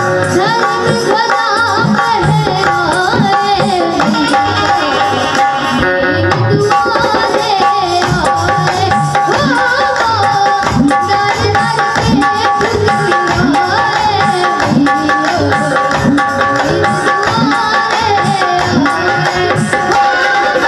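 Devotional folk music: a rhythmic hand-drum accompaniment of tabla-like strokes under a sustained melodic instrumental line, with no clear words.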